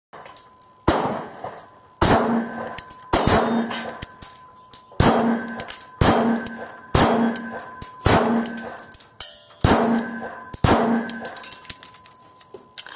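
Smith & Wesson M&P9 Shield 9mm pistol firing about nine slow aimed shots, roughly one a second, each answered by a short metallic ring of a steel target being hit.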